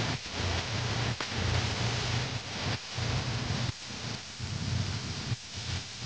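Assault Fitness air bike's fan rushing as it is ridden hard, a steady whoosh that dips and swells roughly once a second with the rider's pedal and handle strokes.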